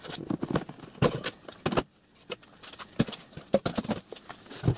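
Irregular knocks and clunks of workshop handling, about half a dozen in all, as the box is lifted off a miniature-railway riding car's metal frame on a wooden bench.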